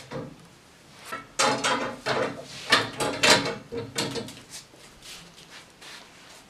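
Clanks and knocks of metal crossbars being fitted into the metal frame of an IKEA FREDDE desk, a run of them through the middle, then fainter handling near the end.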